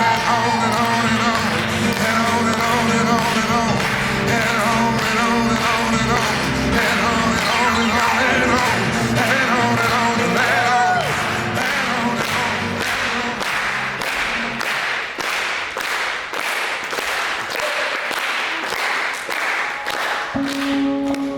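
Recorded music with singing and a steady beat, played to accompany a dance; the deep bass drops out about two-thirds of the way through.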